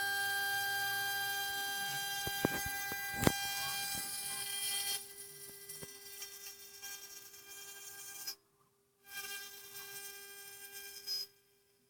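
CNC 6040 router's spindle running with a steady high whine, with a few sharp clicks and a knock about three seconds in. It drops quieter about five seconds in, cuts out briefly a little past eight seconds, and stops shortly before the end.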